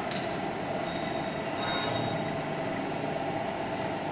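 Gear-driven welding positioners running, their electric drives turning and tilting the worktables with a steady mechanical hum. A short sharp knock comes about a second and a half in.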